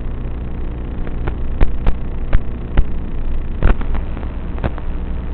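Emax Tinyhawk 3 micro quadcopter's motors humming steadily, with about six sharp knocks between roughly one and a half and five seconds in, typical of the small drone bumping into things.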